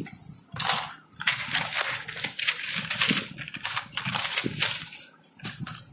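Sheets of paper rustling as pages of handwritten notes are handled and turned, in a series of irregular swishes.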